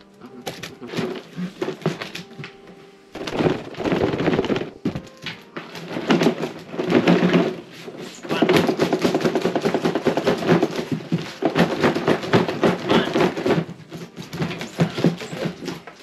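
Cardboard shipping box being cut open with a box cutter and handled: dense scraping and rustling of cardboard with small knocks, in two long stretches separated by short pauses.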